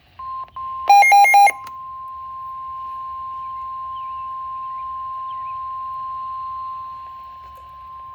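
Weather-radio alert tone: a single steady high tone of about 1 kHz, the warning alarm tone that comes before a warning message is read. About a second in, a short burst of four rapid, louder electronic beeps sounds over it.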